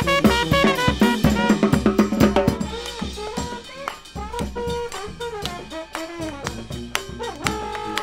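New Orleans second-line brass band playing live: trumpets and sousaphone over a steady drum beat, ending on a held chord near the end.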